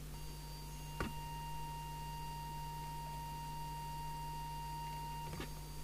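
Steady pure test tone from a small audio oscillator, fed into the CB transmitter while its FM deviation is set. There is a click about a second in, and the tone cuts off near the end with another click.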